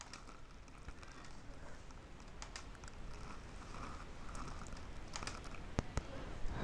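Faint scattered clicks of a computer mouse over low background hiss, the clearest two about five and six seconds in.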